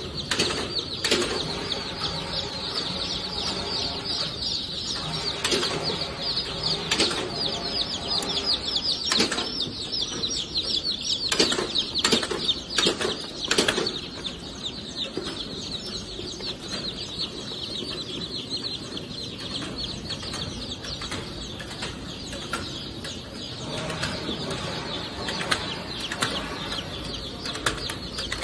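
Many day-old chicks peeping in a dense, continuous chorus of short falling calls. The clicks and knocks of a chick weighing and sorting machine come through it now and then, as its trays tip chicks into the grading chutes.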